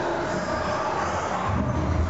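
Ghost-train dark ride's soundtrack: spooky music and effects playing steadily, with a deep rumble coming in about one and a half seconds in.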